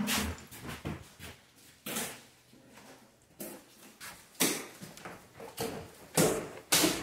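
Wooden kitchen cabinet doors and drawers being opened and shut: a string of knocks and bangs, the two loudest near the end.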